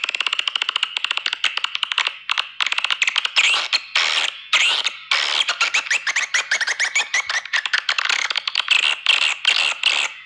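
Swiftlet lure-call recording (suara walet), used in swiftlet farming to draw birds to nest: very fast, dense chattering trills and clicking chirps in bursts broken by short gaps, with a longer unbroken run of rapid clicks through the middle.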